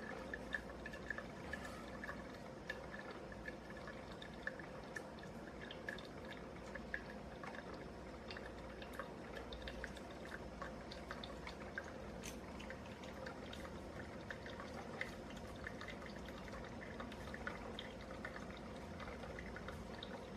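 Black+Decker CM618C single-serve coffee maker brewing: a faint steady hum with irregular soft drips and ticks throughout.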